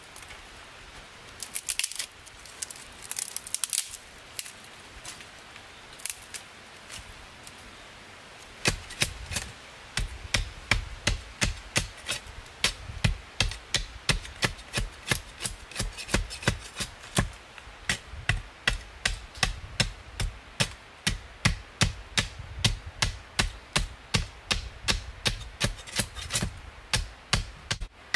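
A knife blade shaving strips down a dry wooden stick in regular strokes, about two a second; each stroke ends in a sharp scrape and a dull knock. Near the start, dry sticks rustle and crackle briefly as they are handled.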